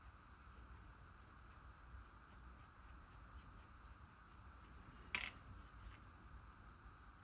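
Near silence: quiet room tone with a faint steady hum, the faint scratching of a paintbrush on soft foam, and one short sharp click about five seconds in.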